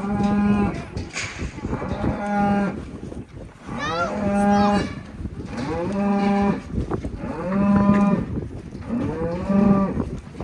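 Cattle mooing repeatedly: about six long calls, each held at a steady pitch, one to two seconds apart.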